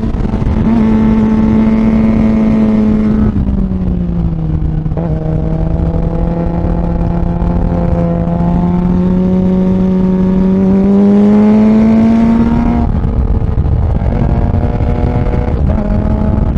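Suzuki GSX-R600 K8's inline-four engine running under the rider at speed, with wind rush. Its note drops about three seconds in, climbs slowly for several seconds, drops sharply again late on, and steps back up near the end.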